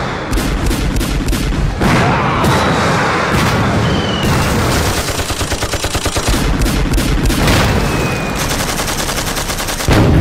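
Battle gunfire: scattered rifle shots, then a sustained machine-gun burst of roughly ten rounds a second in the middle, with short high whines of passing bullets and a heavy bang near the end.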